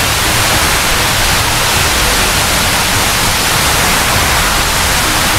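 Water pouring down a tall water-wall fountain into its pool, heard close up: a loud, steady rush of falling water.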